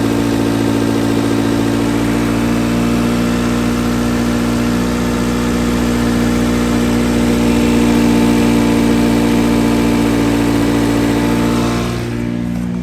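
Car engine running steadily at idle with a broad hiss over it while intake carb cleaner is sprayed into the intake to clear carbon buildup from the dirty throttle body that made it idle rough. The sound swells slightly past the middle, and the hiss and higher sound drop away abruptly near the end.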